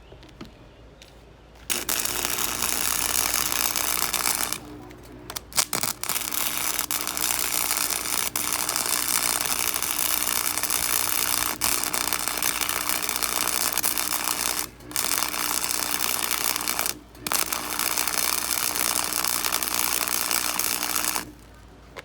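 Cheap MIG welder running beads on 1/8-inch steel flat bar: a steady, loud arc crackle in long runs. It starts about two seconds in, pauses briefly three times and stops about a second before the end.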